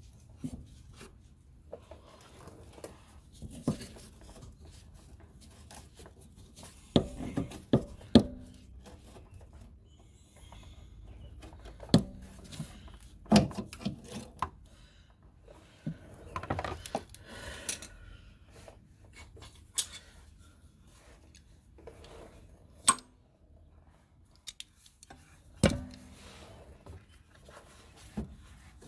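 Hand-tool work on a car's fuel filler neck hoses: scattered clinks, knocks and scraping of tools and metal parts, with a few sharper knocks about a third of the way in and near the middle.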